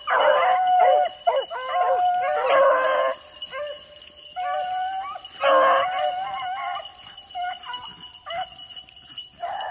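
A pack of beagles baying on a rabbit's scent trail, several voices overlapping. The cry is fullest over the first three seconds and again about five and a half seconds in, then thins to scattered single bays.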